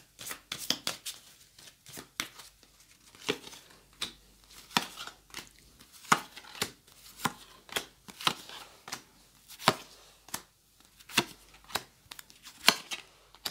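Lenormand fortune-telling cards being dealt one at a time onto a table spread: a run of sharp card snaps and slaps at irregular intervals, about one or two a second.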